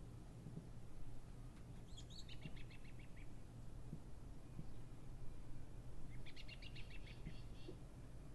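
A small bird chirping in two quick runs of rapid, repeated high chirps, one about two seconds in and one about six seconds in, over a steady low hum.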